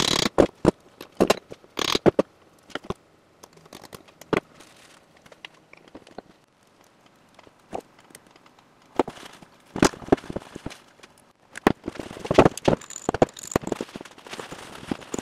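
Irregular clicks, knocks and scrapes of CV-axle parts and hand tools handled on a wooden workbench during reassembly of the axles. They come thick for the first few seconds, thin out in the middle and pick up again from about nine seconds in.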